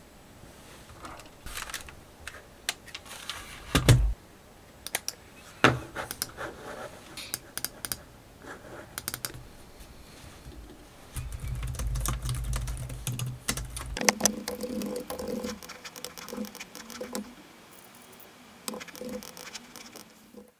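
Computer keyboard keys clicking in irregular runs, as in typing, with a heavier thump about four seconds in and a low rumble from about eleven to fourteen seconds.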